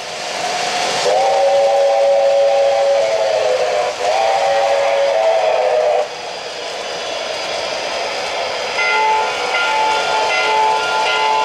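O-gauge model train's electronic sound system sounding a steam whistle in two long chord blasts over a steady hiss of steam and running sounds. After the whistle stops, the hiss carries on, and a different, pulsing whistle tone comes in near the end.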